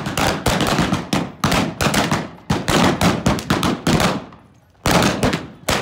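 Rapid volley of blank gunshots from several revolvers in a staged Western gunfight, many shots overlapping for about four seconds, then a brief pause and a few more single shots near the end.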